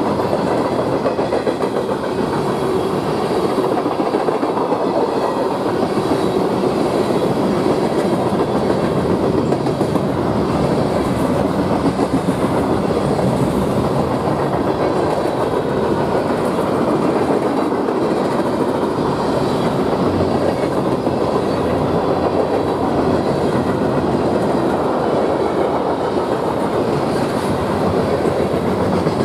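A manifest freight train's cars, boxcars then covered hoppers, passing at speed: steady rolling noise of steel wheels on the rails.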